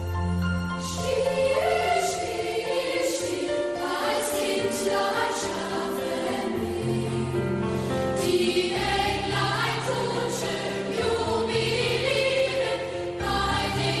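A choir singing sacred music over sustained low instrumental notes.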